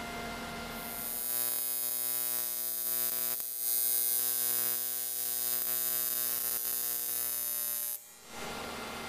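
TIG welding arc on an aluminium turbo elbow, a steady electric buzz with a hiss over it. It starts about a second in, dips briefly partway through and cuts off near the end when the arc is broken.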